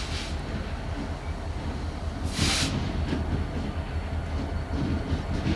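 Diesel locomotive approaching slowly, its engine a steady low rumble, with a short hiss about halfway through.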